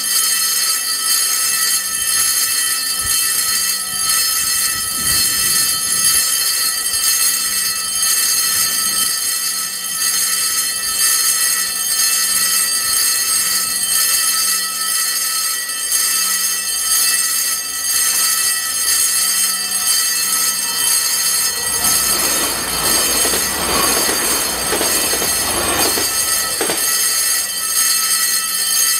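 Level-crossing warning bell ringing continuously while the crossing is switched on for two trains. About 22 seconds in, a train passes: a rumble and rail noise swell under the bell for about five seconds.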